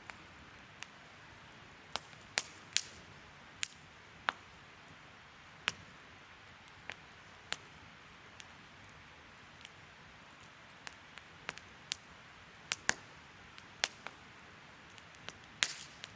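Wood fire crackling: irregular sharp pops and snaps over a soft steady hiss, with a few louder cracks about two to three seconds in, around thirteen seconds, and near the end.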